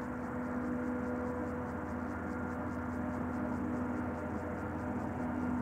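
Diesel locomotive running, a steady droning hum.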